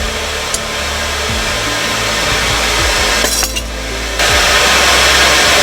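Steady rushing roar of a running forge. It briefly dips about three and a half seconds in, then comes back louder.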